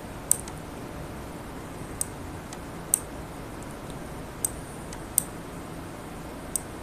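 Computer mouse clicks, about six at irregular intervals, as table column borders are dragged, over a steady low hiss.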